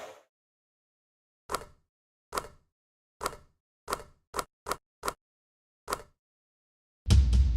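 A series of about eight sharp knocks, coming closer together in the middle, then a loud, deep boom that rings on near the end.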